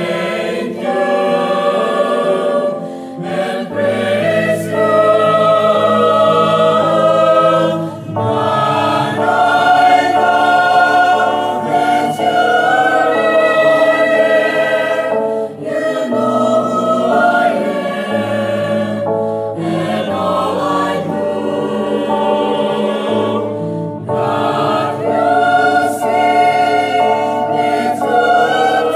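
Mixed four-part choir of sopranos, altos, tenors and basses singing a slow English worship song, accompanied by an electric guitar.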